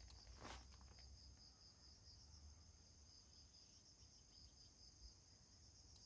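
Near silence: faint room tone with a steady, high-pitched, evenly pulsing chirr and a low hum.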